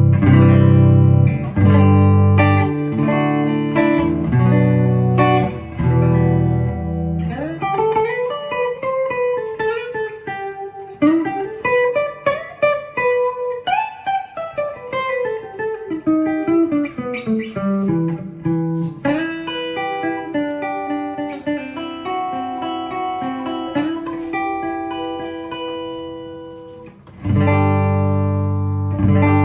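Korean-reissue Danelectro Convertible guitar being played: low ringing chords, then notes sliding smoothly up and down in pitch, then single picked notes that die away before a loud low chord is struck near the end.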